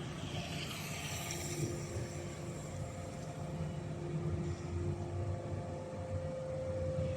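Piling rig's diesel engine running steadily, with a constant low drone and steady engine tones.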